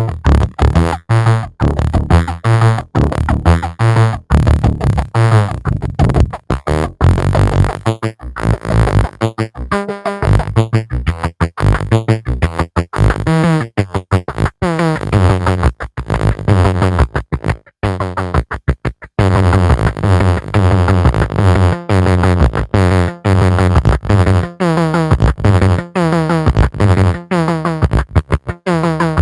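Electronic synthesizer music: a fast run of rapidly repeated synth notes over a heavy bass line.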